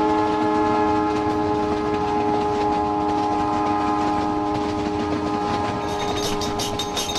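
Train horn sounding one long, steady blast of several notes together, over the rumble of a moving train. About six seconds in, glasses and tableware begin clinking.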